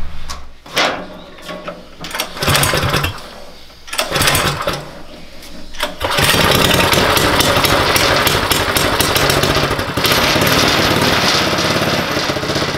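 Predator 212 single-cylinder engine with a Go Power Sports performance kit being pull-started: a few short pulls turn it over, and it catches about six seconds in and runs steadily, its firing pulses coming through more plainly near the end.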